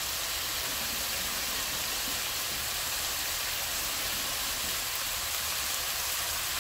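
Ground Mexican chorizo with sofrito frying in a caldero, a steady, even sizzle that starts suddenly.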